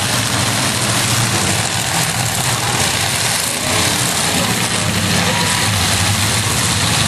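Engines of several demolition derby trucks running together, a steady low engine drone under a dense haze of noise.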